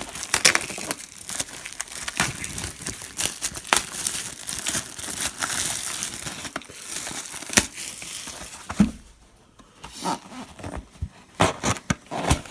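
Plastic wrapping on a trading-card hobby box crinkling and tearing as it is opened, with a brief lull about nine seconds in, then scattered crinkles and taps.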